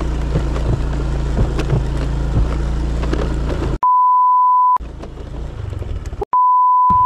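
A Honda scooter's engine runs steadily under load on a steep rocky climb, with scattered ticks of stones under the tyres. Two censor bleeps cut in, each a steady tone of about a second, at about four seconds and again near the end, silencing everything else while they sound.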